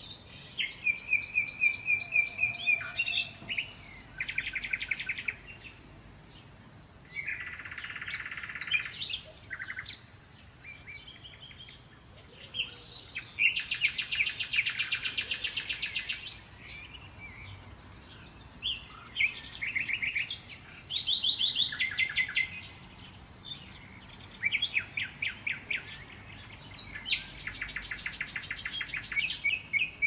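Sparrows chirping and trilling in repeated bouts of a second or two, with short pauses between. A fast, dry chatter about halfway through is the loudest.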